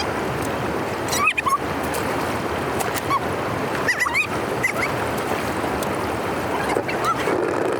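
Steady rush of floodwater pouring through a cleared drainage, with short squeaky animal cries breaking in every second or two.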